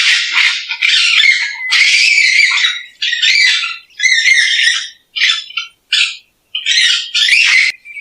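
Raccoon giving a string of high-pitched squealing calls, about nine in all. The calls come back to back at first, then grow shorter with longer gaps in the second half.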